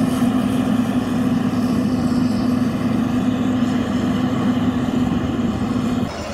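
Caterpillar 140K motor grader's diesel engine running steadily under load while grading gravel, a steady drone with a held humming tone that cuts off abruptly about six seconds in.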